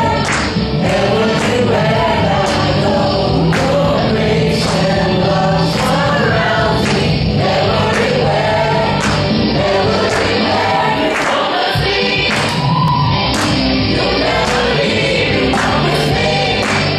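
A choir singing a gospel song with instrumental backing and a steady beat.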